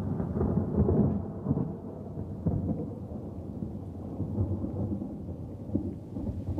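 Thunder rolling and rumbling, loudest around the first second, then settling to a lower, steady rumble.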